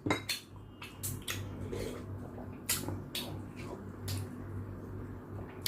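Close-up eating sounds: scattered short clicks and smacks of a mouth chewing food, over a steady low hum.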